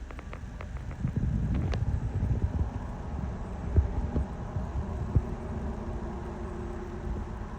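Low, steady rumble of a motor vehicle running, with a few light clicks in the first two seconds.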